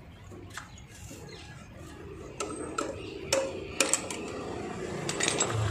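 Several sharp metallic clinks and taps, scattered and irregular, of tools and metal parts being handled during motorcycle servicing. A low steady hum comes in near the end.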